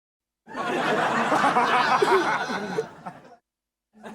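Canned studio-audience laughter from a TV laugh track: a burst of many people laughing together starting about half a second in, dying away a little after three seconds, with a short silence before the next laugh begins at the very end.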